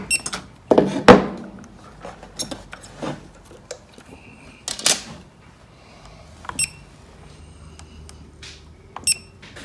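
Short electronic beeps from an IML RESI PD drill's control unit as its menu knob is worked, with several handling knocks and clunks, the loudest about a second in.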